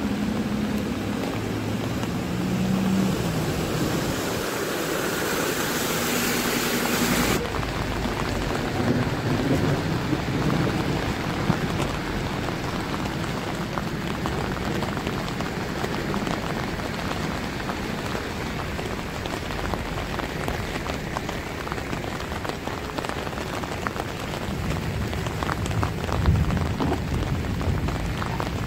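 Heavy rain falling steadily onto a flooded street. In the first seconds a minibus engine runs as the bus wades through the floodwater, until the sound changes abruptly about seven seconds in and only the rain remains.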